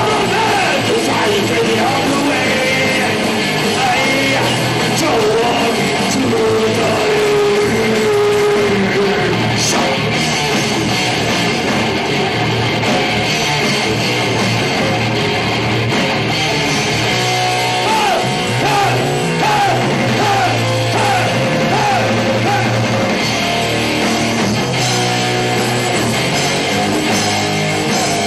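Live thrash metal: distorted electric guitars, bass and drums at full volume, with a shouted, sung vocal line over the first third and a run of repeated bending guitar notes later on.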